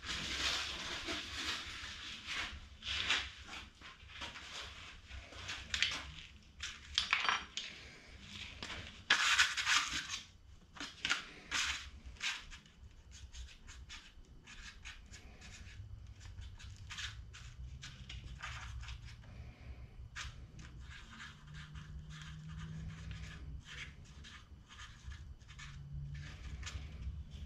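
Clattering, rustling and metal clicking from a sanding belt being changed by hand on a belt grinder that is switched off. The handling noises are busiest and loudest in the first half, then thin out to lighter clicks.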